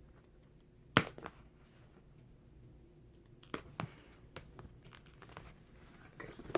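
Packaging being handled during an unboxing: a sharp knock about a second in, then a few fainter taps and light rustling of plastic or cardboard.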